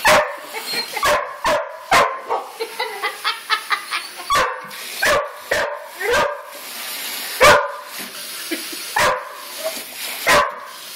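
Border collie barking over and over: about a dozen sharp barks, with a quick run of shorter yips about three seconds in. Under them, a steady hiss of water running from a hose into a plastic bucket.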